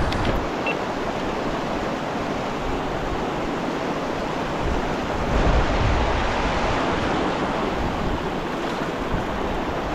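Steady rush of river water flowing over rocks, swelling a little about halfway through.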